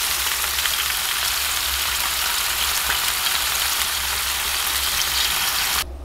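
Raw meat frying in a pan on a wood stove: a steady sizzle with small crackles, cutting off suddenly near the end.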